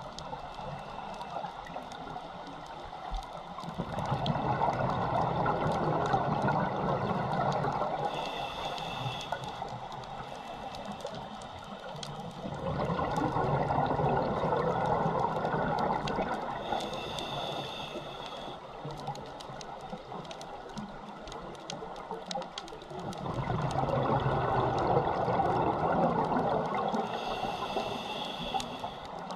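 Scuba regulator breathing underwater: three long exhalations of rushing, bubbling noise, each about four seconds, and after each a short hissing inhale through the regulator. Fine crackling clicks run underneath throughout.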